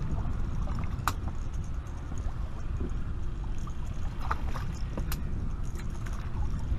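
Steady low rumble of wind and water around a small fishing boat, with two sharp clicks, about a second in and again about five seconds in.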